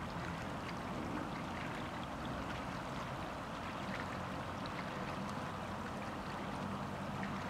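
Steady ambience of rippling shallow lagoon water, with a low rumble underneath and a few faint ticks.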